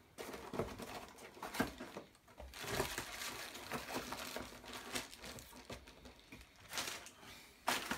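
Cardboard box and plastic packaging rustling and crinkling as packed items are lifted out and handled, with scattered small knocks. A louder rustle comes near the end.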